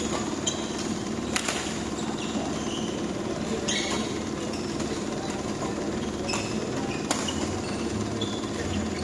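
Badminton rackets striking a shuttlecock in a doubles rally: about five sharp cracks spaced unevenly, with short high squeaks of shoes on the court floor over a steady hall hum.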